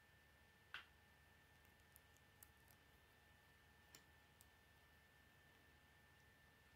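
Faint clicks of small plastic Lego pieces being handled and pressed together. One slightly louder click comes about a second in, then a few softer ticks, over near silence.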